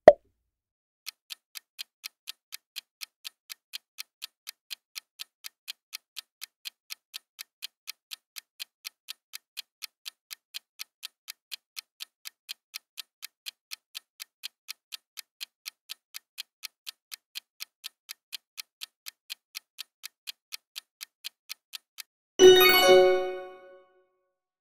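Countdown-timer sound effect: an even clock tick at about three a second for some twenty seconds, then one loud ringing chime that dies away over about a second and a half, signalling that time is up. A short pop sounds at the very start.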